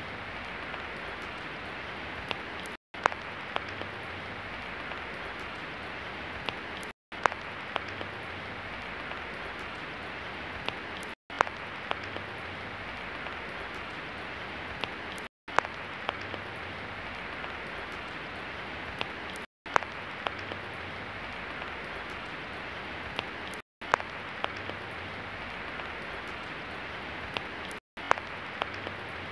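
Steady rain falling, with scattered sharper drop sounds. The sound cuts out for a split second about every four seconds, like a short rain recording played on a loop.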